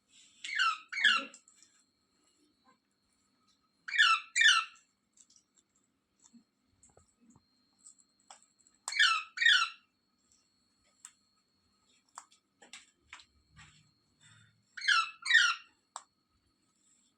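Indian ringneck parakeet giving short, shrill calls in pairs, two quick calls about half a second apart, repeated four times every few seconds, with faint small clicks in between.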